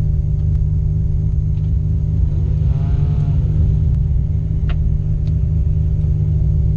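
Race car engine idling, heard from inside the stripped cabin as a loud, steady deep rumble. About halfway through, an engine briefly revs, its pitch rising and falling back.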